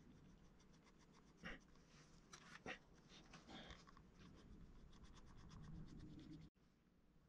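Very faint scratching and light ticks of a metal-tipped sculpting tool and fingers working a thin sheet of clay on a wooden board, with a couple of louder taps about one and a half and two and a half seconds in. The sound drops away abruptly about six and a half seconds in.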